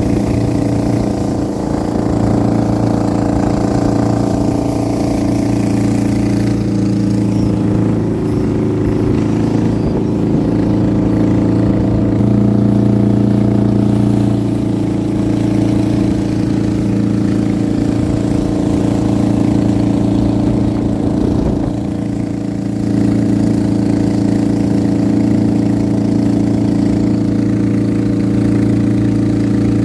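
Motor fishing boat's engine running steadily under way, with a brief dip in level about two-thirds of the way through.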